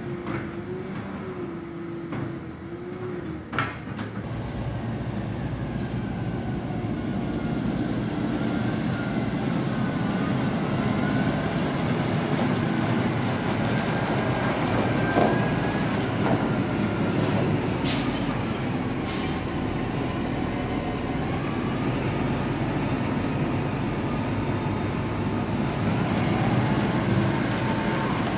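A Claas Arion 840 tractor's diesel engine running as it manoeuvres with a silage trailer, getting louder over the first few seconds and then holding steady. A whine rises and falls over the engine sound, and there are a few sharp knocks.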